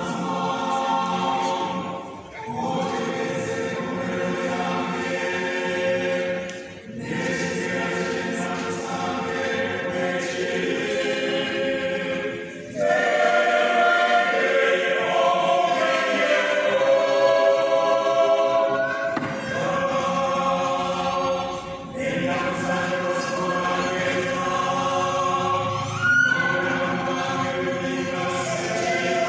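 A choir of lay readers singing together in long sustained phrases, with short breaks between phrases and the singing growing louder about halfway through.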